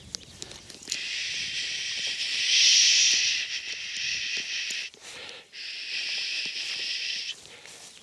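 A man's long, drawn-out "shhh" hushing, given twice, the first swelling loudest in the middle: the braking command used to steady a pointing dog and keep it still.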